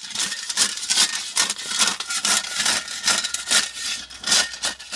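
Steel shovel blade jabbing and scraping into clear stone gravel inside a tire, a dense run of crunching scrapes, packing the stone into every part of the tire as tightly as possible.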